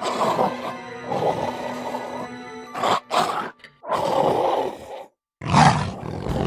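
Dinosaur roar and growl sound effects, one after another about every second, over background music, with a brief dropout to silence about five seconds in.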